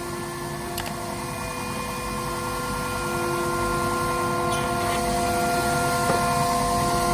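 Steady machine hum with an even, unchanging whine from running workshop machinery at a CNC router, slowly growing louder. A light knock about a second in.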